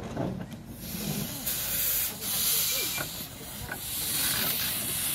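A 12¼-inch gauge miniature steam locomotive hissing steam from its open cylinder drain cocks as it starts to move off. The hiss rises about a second in and comes in several surges.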